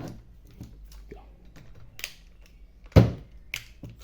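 Scattered small clicks and taps of bolts, nuts and tools being handled, with one sharp knock about three seconds in.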